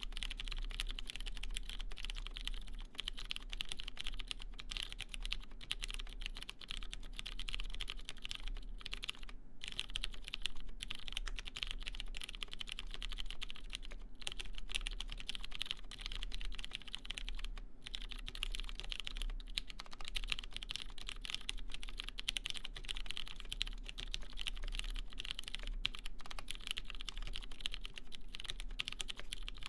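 Steady, fast typing on a mechanical keyboard with lubed Cherry MX Clear tactile switches in a brass half plate, under GMK keycaps: a continuous stream of keystroke clicks and clacks.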